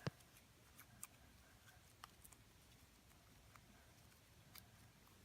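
Near silence: room tone with a few faint, light clicks.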